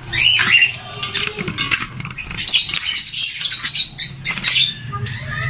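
Pet birds chirping and squawking repeatedly, with short high calls and one rising call about the start.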